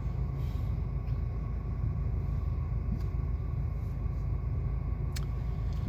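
Steady low rumble of road and engine noise inside a moving car's cabin, with a single short click about five seconds in.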